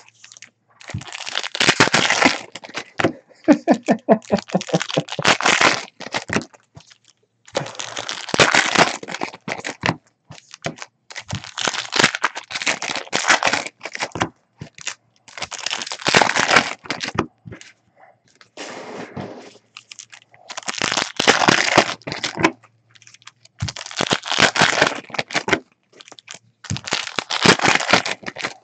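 Trading-card pack wrappers being torn open and crinkled by hand, in repeated crackling bursts a second or two long with short pauses between them.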